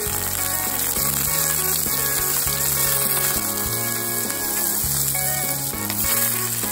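Whole prawns sizzling as they fry in hot oil in a nonstick pan, being cooked down to make shrimp oil, over background music with a stepping bass line.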